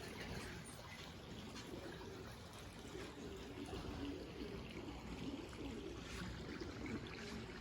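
Racing pigeons cooing softly, a low wavering murmur of coos.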